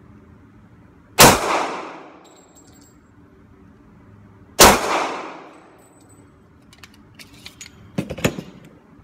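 Two pistol shots from a Springfield Armory XD in .40 S&W, about three and a half seconds apart, each echoing off the walls of an indoor range booth. A few light clicks and knocks of handling follow near the end.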